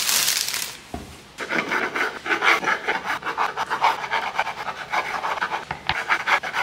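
A plastic bread bag crinkles briefly, then a knife saws through a soft loaf of bread on a cutting board in repeated strokes.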